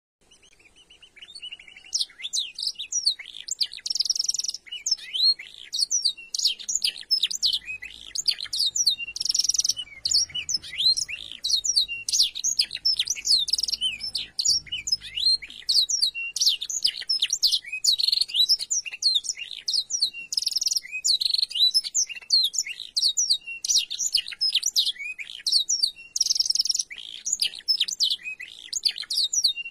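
Domestic canary singing a long, fast run of chirps and high trills, its song filled with blackthroat (yellow-rumped seedeater) phrases. The song fades in over the first couple of seconds.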